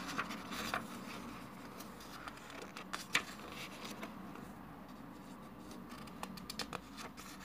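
Book pages being turned and handled: soft paper rustles and light taps, a few near the start and a cluster near the end, over a faint steady room hum.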